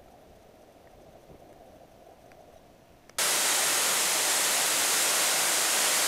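Faint, muffled rush of stream water heard underwater, then about three seconds in an abrupt cut to the loud, steady rushing of a waterfall.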